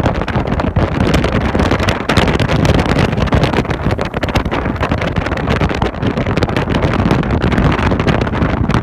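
Rigid inflatable boat underway, its engine and water noise mixed with loud, continuous wind buffeting on the microphone.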